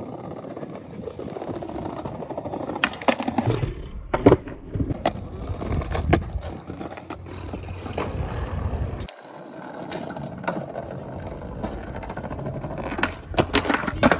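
Skateboard wheels rolling over pavement, broken by sharp wooden clacks of the board popping and landing, a cluster about three to six seconds in and another near the end.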